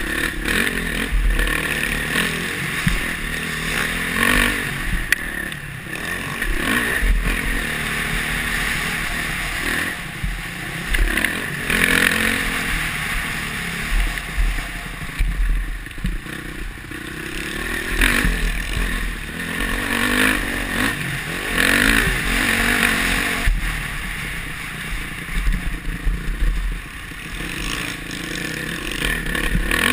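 Honda CRF450R motocross bike's single-cylinder four-stroke engine, ridden hard on a dirt track: the revs climb and drop as the throttle opens and closes every few seconds.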